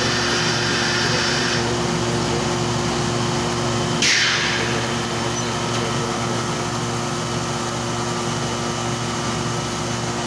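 Vacuum forming machine running with a steady mechanical hum; a high air hiss cuts off about a second and a half in, and about four seconds in a sudden rush of air falls quickly in pitch.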